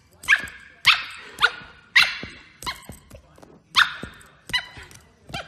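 Husky puppy giving short, high-pitched yipping barks, about two a second, each call dropping in pitch.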